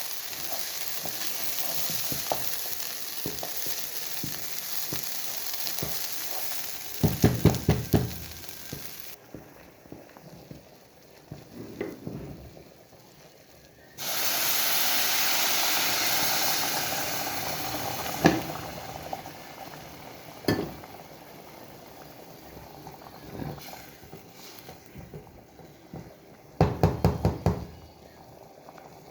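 Food sizzling in a frying pan while being stirred. Two runs of quick, loud knocks come about seven seconds in and near the end. A second bout of loud sizzling starts abruptly midway and fades away.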